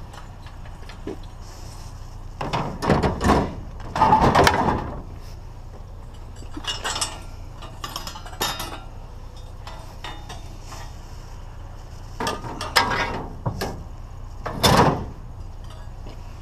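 Pieces of scrap metal clanking and rattling as they are handled and dropped, in several separate bursts over a low steady hum. The loudest clatter comes about four seconds in, and another sharp one near the end.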